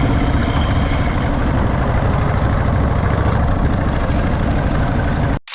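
Harley-Davidson Shovelhead V-twin engine running with a steady, lumpy low beat. The sound cuts off suddenly near the end.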